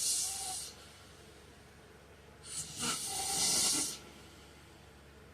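A sleeping man snoring with breathy, hissing snores about three seconds apart. One fades out in the first second, and the next starts about two and a half seconds in and lasts about a second and a half.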